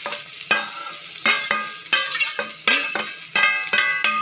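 Steel spoon clinking against a steel plate and kadai as chopped garlic is scraped into hot oil: about ten ringing metal clinks, two or three a second, over the sizzle of frying.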